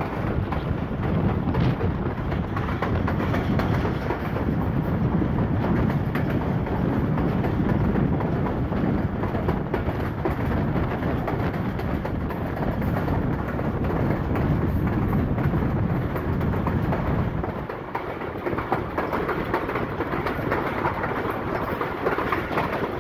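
Passenger train running at speed, heard from an open carriage door: a steady rumble of the coach's wheels on the rails. The deep rumble eases off about three-quarters of the way through.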